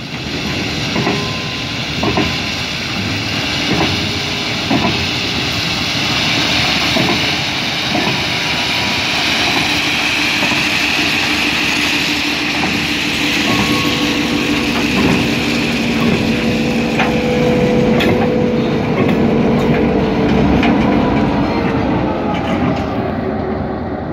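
Slow-moving ballast train: loaded hopper wagons dumping crushed-stone ballast through open chutes onto the track with a continuous rushing hiss, while the wheels knock regularly about once a second. In the second half the diesel locomotive's engine draws close with a steady drone.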